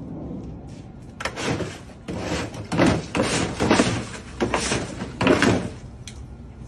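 A plastic kiddie pool with water in it being shoved across wet concrete by a dog: about eight scraping, sloshing pushes in a row, starting about a second in.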